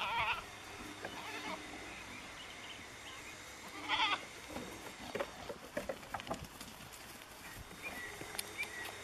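Goats bleating: a wavering bleat at the very start and a louder one about four seconds in, with a few short knocks after it.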